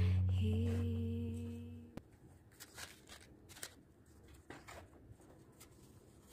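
Background music ends on a held chord that fades out over about two seconds. Then faint, scattered taps and paper-like rustles of small cardboard drawers being handled and pulled open.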